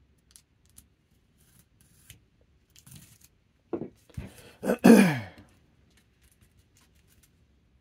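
Hobby knife cutting into a cardboard mailer: faint scratches and clicks, then around four to five seconds in a louder burst of cardboard scraping and tearing that ends in a short falling groan-like sound.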